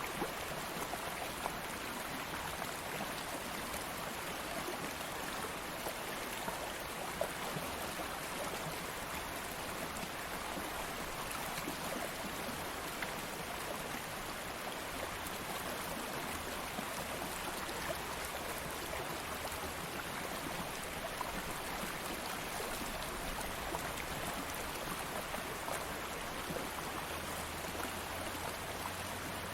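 Stream of water flowing steadily over stones, an even rushing with small splashes and trickles throughout.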